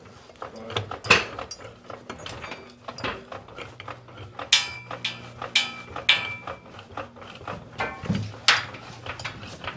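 Metal hand tools and hardware clinking and ratcheting, with repeated sharp metallic clanks that ring briefly, as when lug nuts are run onto wheel studs. A faint steady low hum sits underneath.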